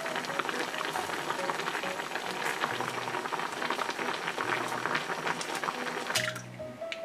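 Kimchi stew boiling hard in a stainless steel pot: a dense, crackling bubbling. It cuts off about six seconds in.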